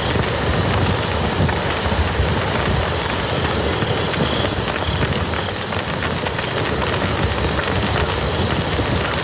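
Campfire crackling over the steady rushing of a river. A short, high chirp repeats about every three-quarters of a second for several seconds in the middle.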